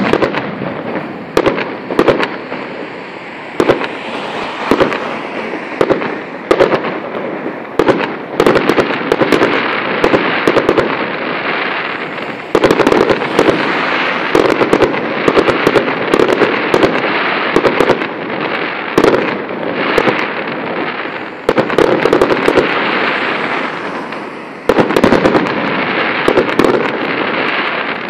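Aerial fireworks going off: many sharp bangs at irregular intervals over a continuous hiss from the burning shells.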